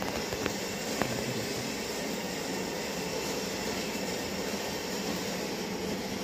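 Toshiba e-Studio 2010AC photocopier running with a steady whirring hiss, with two faint clicks in the first second.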